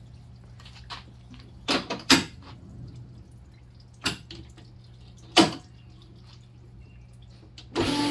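Cylinder honing machine with the hone being set into a freshly bored two-stroke jet-ski cylinder: a few sharp metallic clicks and knocks over a low steady hum. Near the end the hone starts up with a sudden loud, steady whir.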